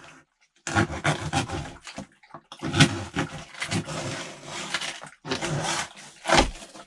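A knife blade slitting packing tape along the seam of a cardboard box: a series of ripping, scraping strokes of tape and cardboard, with short pauses between them and a brief sharp rip near the end.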